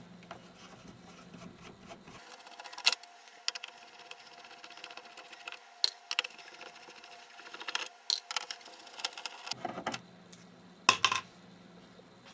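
Phillips screws being undone by screwdriver from the plastic back cover of a Dell E2210Hc LCD monitor: scattered light clicks and taps with faint scraping between them, and a few sharper clicks.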